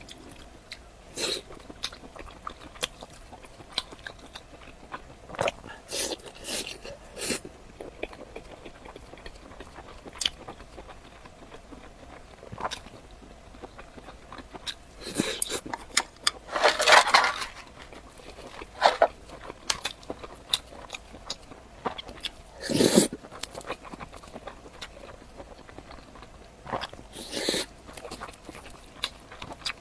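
Close-up eating of a chicken cutlet rice bowl: crisp bites and chewing of the fried cutlet, heard as scattered crunches and mouth clicks. A few louder, longer crunches come about halfway through and again about three quarters in.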